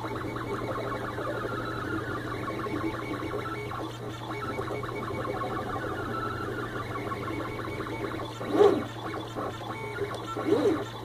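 3D printer's stepper motors whining in quick changing pitches as the print head makes short moves laying down a ring-shaped bush, over a steady low hum. Twice near the end a louder sweep in pitch as the head makes a longer, faster move.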